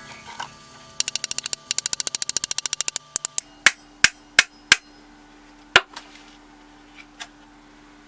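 Hammer knocks on wood. A fast run of light taps, about eight a second for two seconds, is followed by about six separate, harder sharp strikes spaced irregularly, in keeping with knocking off the saw-cut sections of a rotten wooden tiller.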